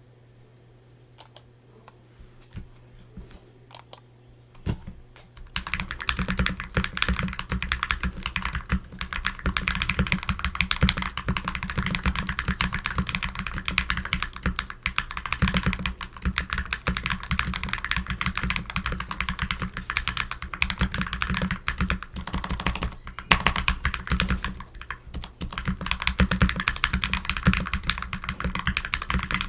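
Glorious GMMK mechanical keyboard being typed on. It has lubed Gateron G Pro Black linear switches, tape, foam and PE foam mods, and double-shot PBT keycaps. A few single keystrokes come first, then fast continuous typing from about five seconds in, with a short pause about three quarters of the way through.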